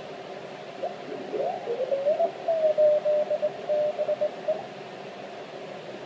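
Icom IC-781 transceiver's receiver audio in CW mode with the narrow filter: a steady band-noise hiss with Morse code signals sliding in pitch as the tuning dial sweeps across them. Near the middle, one signal settles into a steady tone keyed on and off in dots and dashes before it drifts away.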